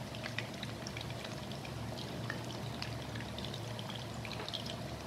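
Batter-coated chicken strips deep-frying in hot oil in a wok: a steady bubbling sizzle with scattered small crackles.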